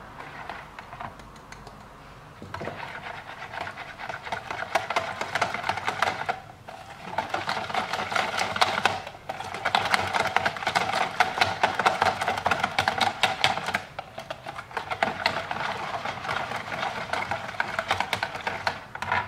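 Wire whisk beating cornstarch into a thick pumpkin purée and egg batter in a bowl: a fast run of light clicks and scrapes against the bowl, with a few brief pauses. It starts about two seconds in.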